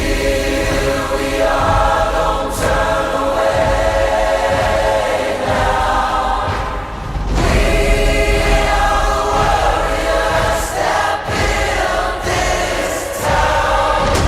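Music with a choir singing long held notes, briefly dropping away about seven seconds in.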